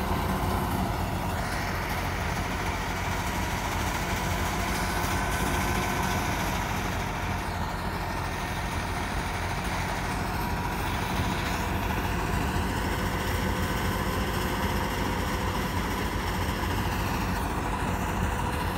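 Massey Ferguson 260 tractor's diesel engine running steadily under load, powering a wheat thresher through its PTO shaft, together with the steady whir of the thresher.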